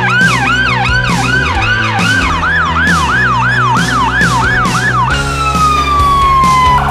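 Electronic emergency-vehicle siren on a fast yelp, sweeping up and down about two to three times a second, then one long slow falling wail near the end, with background music with a steady beat underneath.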